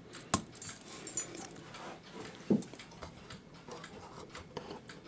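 Scattered small metallic clicks and taps from handling a cuckoo clock movement, the sharpest about a third of a second in, with a short low pitched sound about two and a half seconds in.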